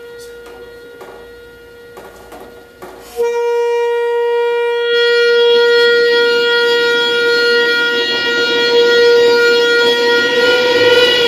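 Live experimental drone music: one sustained tone held at a single pitch, with a few faint knocks under it, that jumps suddenly louder about three seconds in; from about five seconds a hiss of noise builds up beneath the drone.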